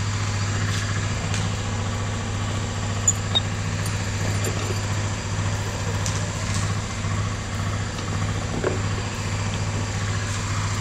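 Aprilia SR150 scooter's single-cylinder four-stroke engine idling steadily, with a few light clicks over it.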